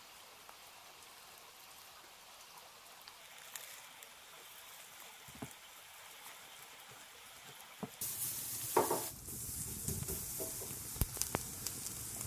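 Tomahawk ribeye steaks sizzling on a grill grate over hot coals. The sizzle starts suddenly about two-thirds of the way in and carries scattered sharp pops and crackles.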